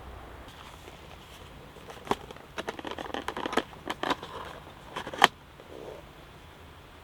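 Cooking utensils clicking and knocking against cookware: a quick, irregular run of sharp clicks lasting about three seconds that ends in one louder knock.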